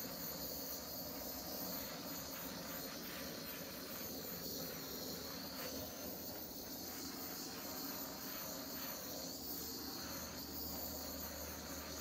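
Handheld butane torch flame hissing steadily as it is passed over wet acrylic pour paint.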